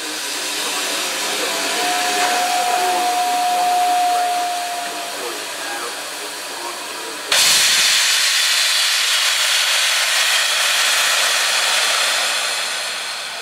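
GWR Modified Hall 4-6-0 steam locomotive 7903 standing and hissing steam, with a steady whistle note for about three seconds from about two seconds in. About seven seconds in, a much louder, harsher rush of escaping steam starts suddenly, as steam is vented at the front of the engine, and runs on before easing near the end.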